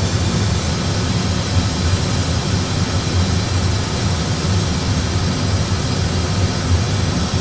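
Steady low rumble and hiss of Airbus A320 cockpit noise, the engines and airflow at descent power as reproduced in a flight simulator, unchanging throughout.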